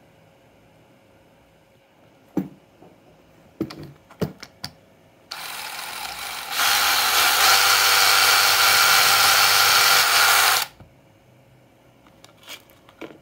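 Cordless drill boring out the centre hole of a plastic fan-blade hub. A few handling knocks come first; then the drill runs for about five seconds, starting slower and jumping to full speed partway through, and stops suddenly, followed by a few light clicks.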